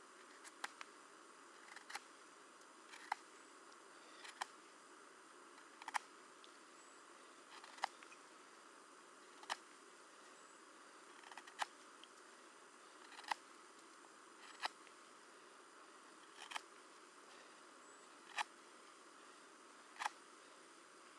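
Sharp, light clicks, about one every one and a half to two seconds, over a faint steady hiss.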